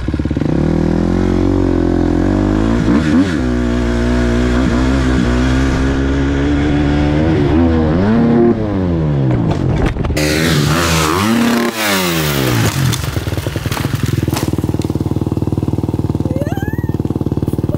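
Motocross bike engine revving up and down, then a burst of clatter and scraping about ten seconds in as the revs fall away in a crash. After that the engine runs on at a steady low idle.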